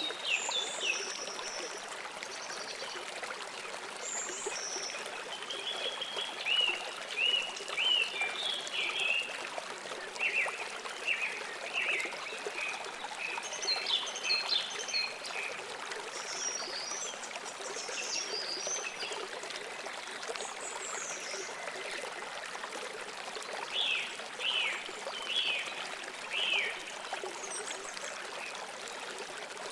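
A river or stream running steadily, with small birds chirping and trilling in short bursts over it, thickest in the middle and again near the end.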